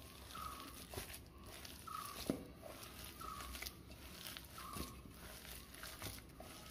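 Hands kneading a damp mix of sliced onions and urad dal flour in a steel bowl: soft, faint squelching and scraping against the metal, about one stroke a second, with a short squeak at most strokes.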